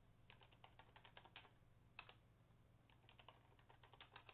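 Faint computer keyboard typing. A run of keystrokes, a single key press about two seconds in, then a second run of keystrokes: a password being typed and then typed again to confirm it.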